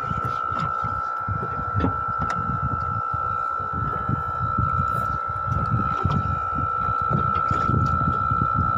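A steady high-pitched whine that holds one pitch, over irregular low rumbling buffets of wind and water on a small boat at sea.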